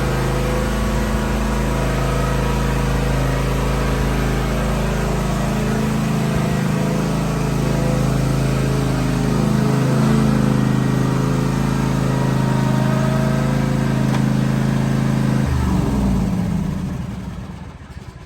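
Cub Cadet ZT1 50 zero-turn mower's engine running steadily after being started, then shut off about fifteen seconds in, its pitch falling as it winds down to a stop.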